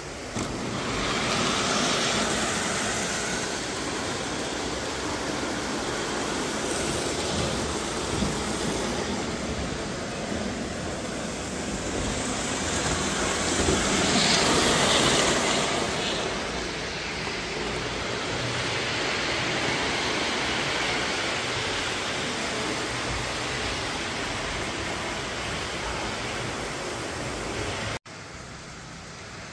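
Model freight train running on a layout's track: a steady rumble and rattle of its wheels and cars, swelling about halfway through. It drops suddenly to a quieter steady hum near the end.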